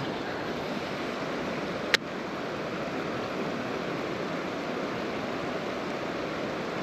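Steady rush of river water pouring over a weir, with one sharp click about two seconds in.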